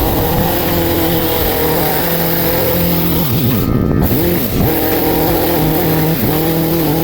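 Petrol lawn mower engine running steadily, its revs dipping briefly and recovering about halfway through as it takes load.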